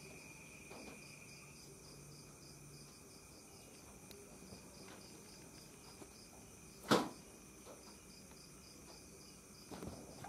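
Insects trilling steadily at night in several high, even tones. A single sharp knock about seven seconds in is the loudest sound, with a few faint ticks and knocks around it.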